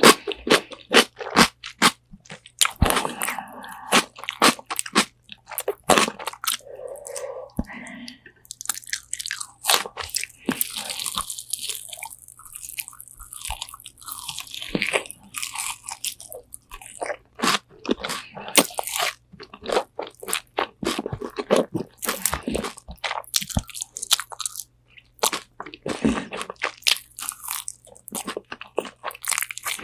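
Close-miked biting and chewing of crispy Korean spicy fried chicken wings: a rapid run of sharp crunches, with a hissier, wetter stretch of chewing in the middle.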